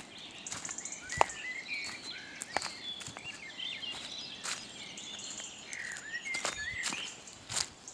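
Small songbirds chirping and twittering in short, overlapping calls, with a high trill now and then. Irregular sharp crackles, like footsteps in dry autumn leaves, come through the birdsong, the loudest about a second in.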